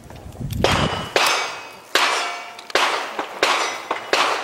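A string of sharp metallic clangs, about one every 0.7 s, each ringing on briefly: bullets striking steel plate targets.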